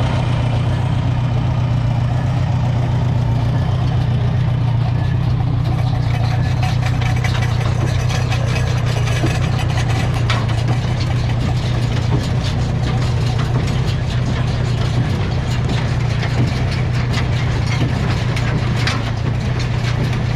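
An engine idling steadily, a constant low hum that holds unchanged throughout.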